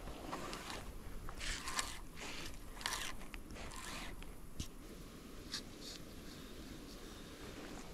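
Scattered rustling, scraping and crunching close by, with a few sharp clicks; the loudest bursts come between about one and a half and three seconds in.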